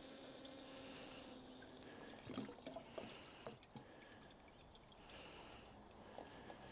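Diesel being poured into the heater's fuel tank, a faint steady trickle, with a few light knocks and clicks about two to four seconds in.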